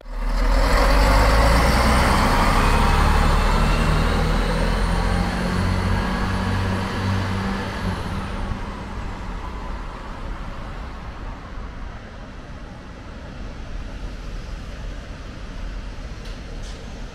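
Container freight train passing at speed: a loud rumble of wheels on the rails with a faint high whine, fading away over about eight seconds. A quieter, steady noise follows.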